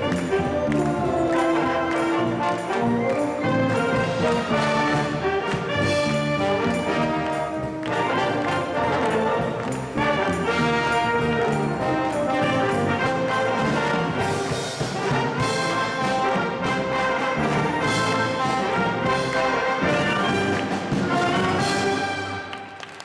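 School wind band playing an upbeat piece with brass, saxophones, flutes and drum kit together, the music stopping just before the end.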